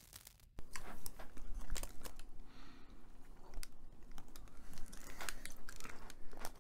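Candy bar wrapper crinkling and rustling as it is pulled open and peeled off the bar, a run of small irregular crackles and clicks.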